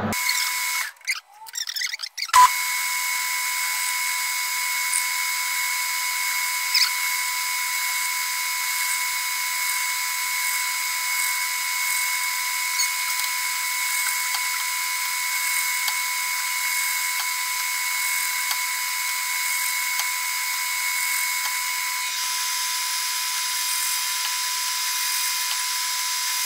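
Metal lathe turning a carburettor top held in an aluminium fixture, giving a steady high-pitched whine with one strong tone. About a second in the sound briefly drops out, then comes back with a sharp click and runs on unchanged.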